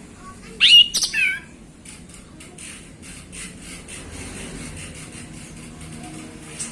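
Male orange-headed thrush singing: one short, loud phrase of sliding whistled notes about half a second in, followed by faint, evenly spaced clicks a few times a second.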